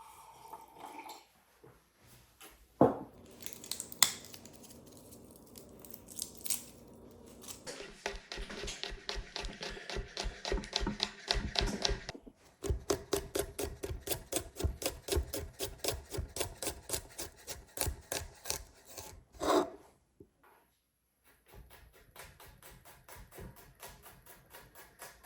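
Kitchen knife chopping vegetables on a wooden cutting board: a couple of sharp knocks, then a long run of quick, even chopping strokes that pauses briefly partway through and tails off near the end.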